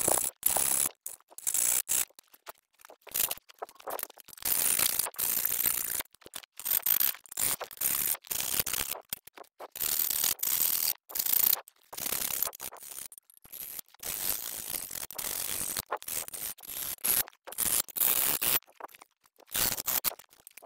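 Hand file rasping in short, irregular strokes along the edges of a freshly cut hole in a sheet-metal electrical enclosure, deburring the cut. The strokes come in quick runs with brief pauses and thin out near the end.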